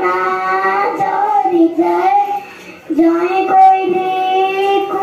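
A young girl singing a patriotic song solo into a microphone, without accompaniment, in long held notes with a short break about two and a half seconds in.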